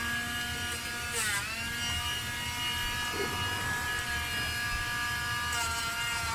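Battery-powered pet nail grinder running with a steady high whine as it grinds a dog's toenails; its pitch dips briefly about a second in.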